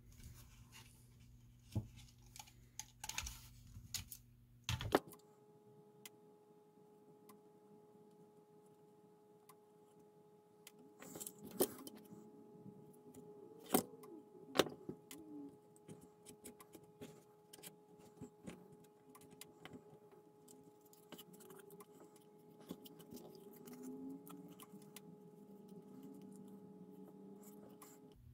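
Faint scattered clicks, taps and rattles of plastic model-kit parts and wiring being handled and fitted together by hand. A steady low hum sits underneath from about five seconds in.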